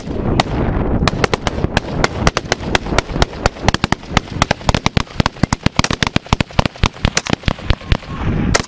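Heavy small-arms fire: many rifle shots cracking in quick, irregular succession and overlapping, several a second, from more than one weapon.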